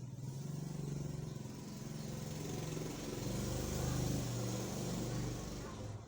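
A motor vehicle's engine passing by, loudest about two-thirds of the way through and dropping away near the end.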